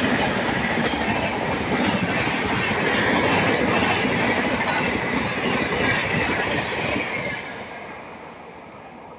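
Express passenger train rushing past at speed, its coach wheels clacking rhythmically over the rail joints. The noise fades away about seven seconds in as the last coach passes and draws off down the line.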